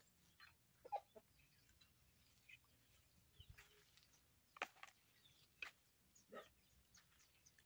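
Quiet background with a few short, scattered chicken clucks and light knocks, separated by long gaps.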